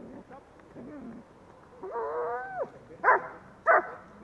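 German Shepherd guarding a helper in a bite sleeve gives a drawn-out whine that rises and falls, then starts barking at him: two loud, sharp barks about half a second apart near the end.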